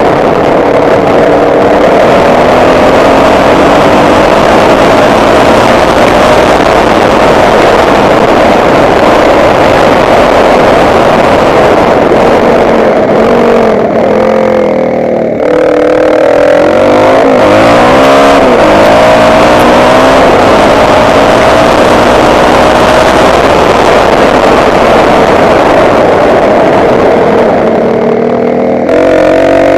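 Motocross bike engine running hard at a steady pitch, then revving up and down repeatedly through gear changes about halfway, with a short drop in revs near the end.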